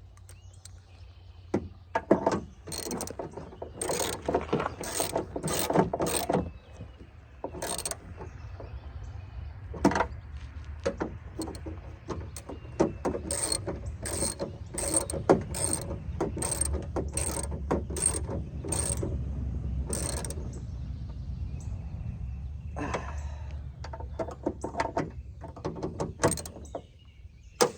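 Hand ratchet clicking in quick bursts with short pauses as it runs nuts down onto the studs of a car's rear exterior door handle.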